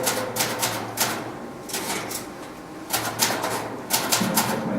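Typewriter keys striking in an irregular rhythm, two or three sharp clacks a second, over a low steady hum.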